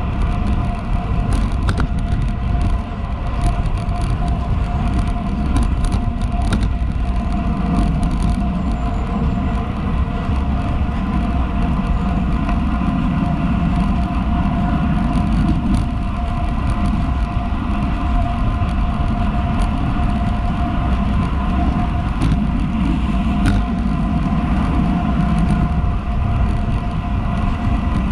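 Steady rush of wind buffeting a GoPro's microphone on a road bike riding at about 36 km/h on Roval Rapide CLX 50 carbon wheels, mixed with road noise from the rolling bike.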